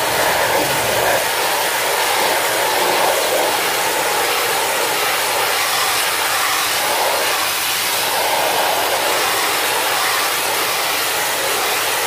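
Steady hiss of a high-pressure water jet from a jet pump's spray gun blasting through the fins of a split-type air conditioner's indoor-unit coil, washing out caked, jelly-like dust.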